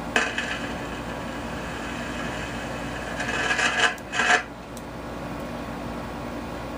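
Heathkit T3 signal tracer's speaker giving out an ugly, steady noise with a low tone beneath it as its gain is turned up. The noise swells briefly at the start and again about three to four seconds in, and is heard through computer speakers. The uploader takes the fault to be charge building up on the control grid of the 12SH7 amplifier tube, which has no grid-leak resistor.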